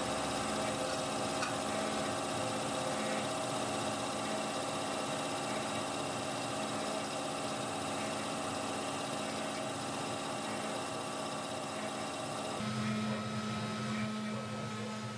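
Steady hum of workshop machinery running, several fixed tones at once; the hum changes abruptly near the end.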